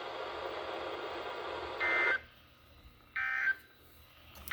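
Radio hiss, then NOAA Weather Radio SAME end-of-message data bursts. These are short two-tone warbling bursts about 1.3 s apart, two of them whole and a third starting at the very end, which signal the close of the Required Weekly Test broadcast.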